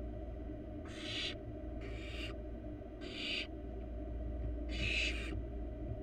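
Barn owl nestlings giving their hissing, snoring begging calls: four separate hisses of about half a second each, the last the loudest, over a steady low hum.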